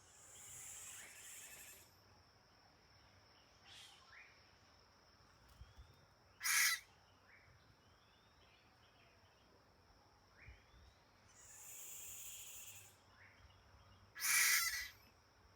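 Hyraxes calling to each other: two long breathy hisses, two short loud sharp cries about 6.5 and 14.5 seconds in, and several faint short falling chirps in between.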